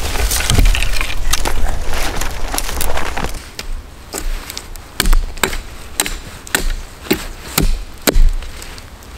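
A hatchet chopping into a wooden stick, with about eight sharp, separate strikes over the last six seconds. Before them comes a few seconds of close rustling and knocking as the hatchet is handled over undergrowth.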